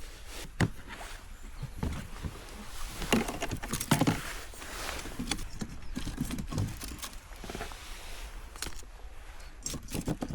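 Camp gear being handled by hand: irregular clinks, knocks and rustling, with a few louder knocks about three to four seconds in.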